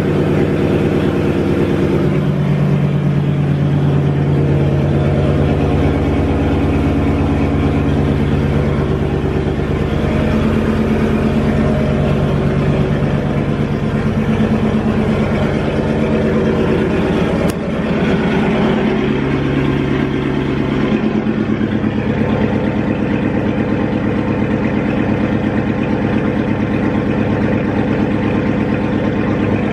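Car engine running, its pitch shifting up and down a few times.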